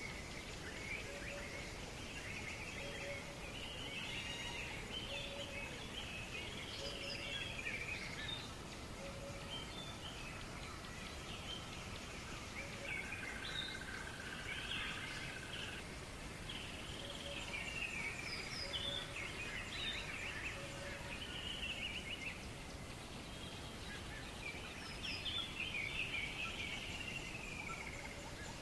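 Outdoor birdsong: several songbirds chirping and singing phrases all the way through, over a steady background hiss. A short low call repeats about once a second in two runs, one in the first third and one about two-thirds in.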